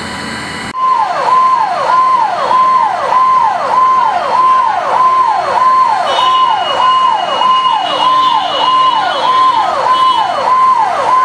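Fire engine's electronic siren sounding a fast repeating cycle, a held high tone that drops sharply in pitch, about one and a half times a second. It cuts in abruptly about a second in.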